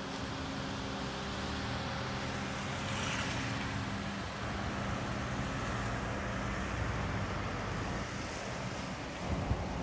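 Cars pulling out and driving off along a road: a steady engine hum with tyre and traffic noise.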